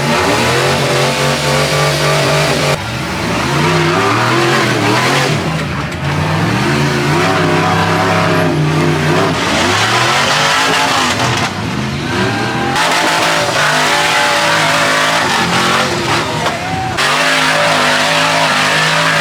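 Off-road race vehicle engines revving hard, their pitch climbing and dropping as they accelerate and shift, over a loud rushing noise. The sound changes abruptly several times, from one passing vehicle to the next.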